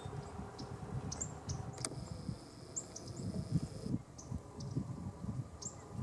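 Short, high chip calls from small songbirds, several scattered through, over a low gusty rumble. A steady high buzz runs for about two seconds in the middle.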